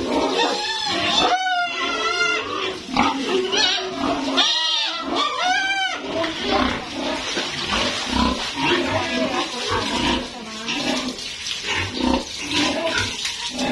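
Pigs squealing and grunting: several loud, high squeals that rise and fall in pitch during the first six seconds, then a continuous jumble of shorter squeals and grunts.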